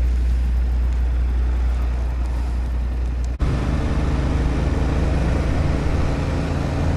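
Yamaha MT-07 parallel-twin motorcycle engine running with a steady low rumble, then pulling away under throttle about three and a half seconds in. The engine note becomes busier and louder as the bike accelerates.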